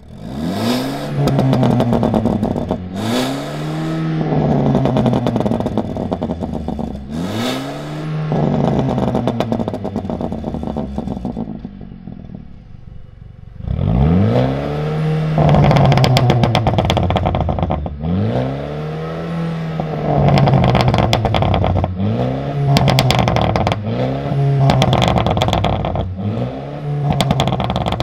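Mercedes-Benz A250 (W176) 2.0-litre turbocharged four-cylinder with a Fi valved aftermarket exhaust, revved hard in a series of about ten quick blips. Each rises and falls in pitch, with crackling pops on the overrun between them. About halfway through the engine settles briefly to a quieter idle, then the blips resume with the exhaust valve open.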